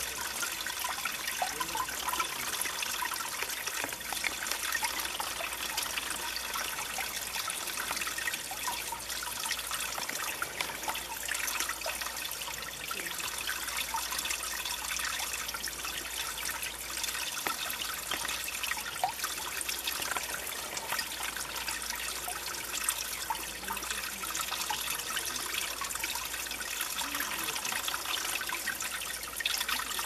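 Mountain valley stream flowing: a steady rush of water with many small splashes and trickles throughout.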